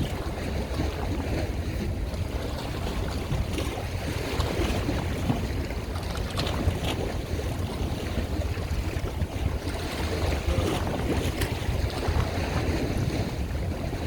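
Wind buffeting the microphone in a steady low rumble, over the wash of water.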